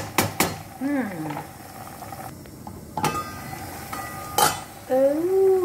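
Wooden spoon tapping and knocking against a nonstick pot of simmering adobo: a quick run of sharp taps at the start, then single knocks about three and four and a half seconds in. A cat meows briefly about a second in, and again near the end with a longer call that rises and falls.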